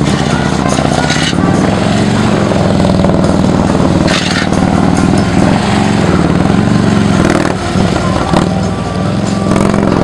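Police motorcycle's V-twin engine running at low speed, its revs rising and falling repeatedly through tight, slow turns.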